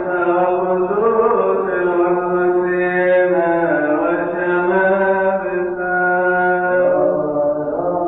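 Coptic liturgical chanting: a slow, melismatic vocal melody with long held notes over a steady low sustained note.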